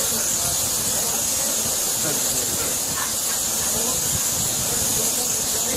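Acetylene torch flame hissing steadily against the base of a stock pot of frying oil.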